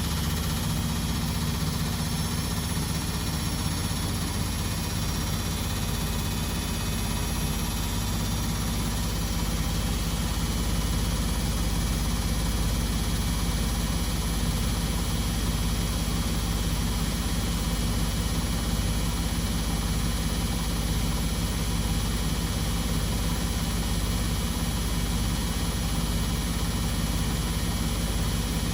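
Beko WMD 46160 front-loading washing machine spinning at high speed: a steady drum rumble and hum with a motor whine that climbs slightly over the first several seconds, then holds steady.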